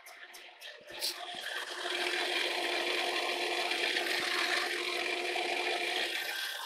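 Fly cutter on a horizontal boring mill cutting the end face of a welded steel column: a loud, continuous rasping cut with a steady metallic ring. It swells about a second in and eases off near the end.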